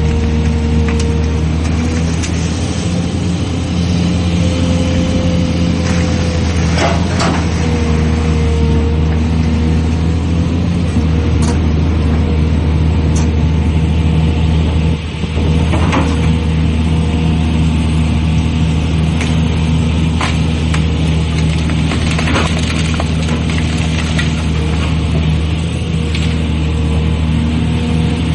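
Excavator's diesel engine running steadily under load, with a steady hydraulic whine over the engine hum. A few sharp knocks and cracks break in now and then.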